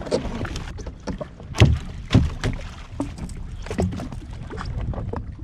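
Water slapping and knocking against the hull of a drifting jet ski, with a steady low rumble and a few louder thumps about one and a half and two seconds in.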